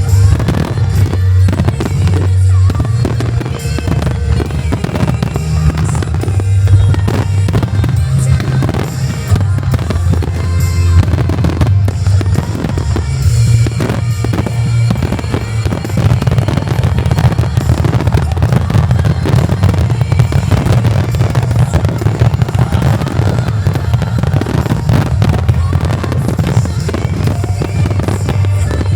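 A dense barrage of aerial firework shells bursting in rapid, overlapping succession: a grand-finale volley of deep booms with no pause. Music plays under the bursts.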